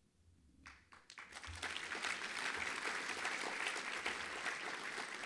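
Audience applauding, starting about a second in and building to steady clapping.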